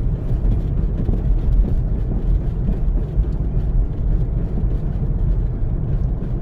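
Steady low rumble of an all-wheel-drive SUV driving on a snow-covered road: engine and tyre noise.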